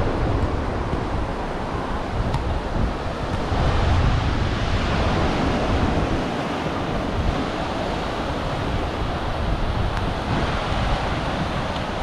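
Ocean surf washing onto a sandy beach in a steady, continuous wash, with wind buffeting the microphone in gusty low rumbles.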